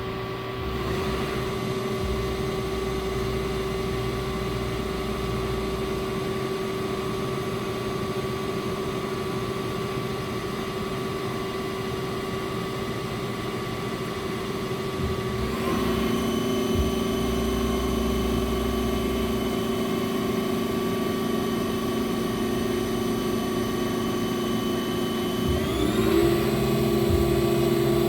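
CNC gang tool lathe spindle running with a steady whine, its speed stepping up about 1,000 RPM at a time: the pitch jumps up once about halfway through and again near the end, getting louder each time.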